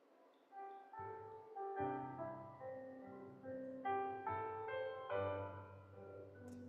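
Soft piano music: a few faint high notes, then fuller chords with bass notes coming in about a second in.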